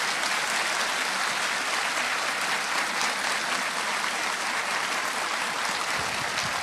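Audience applauding steadily at the close of a talk.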